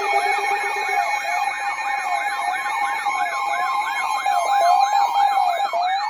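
Several sirens sounding at once: a fast yelp sweeping up and down about three times a second over a slower, lower wail rising and falling about once a second, with steady tones underneath.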